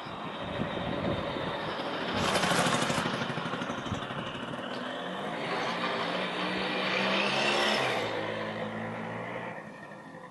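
Suzuki FZ50 moped's small two-stroke engine running and revving up twice, about two seconds in and again around seven seconds. It drops back to a lower, quieter idle near the end.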